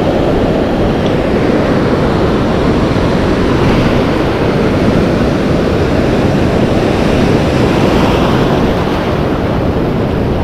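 Ocean surf: waves breaking and foam washing in around the shallows as a steady, loud rush, with wind rumbling on the microphone.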